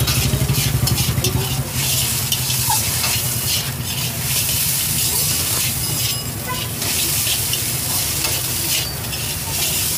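Chow mein noodles sizzling in a hot steel wok while a metal spatula stirs and tosses them, scraping and clacking against the wok over and over. A steady low hum runs underneath.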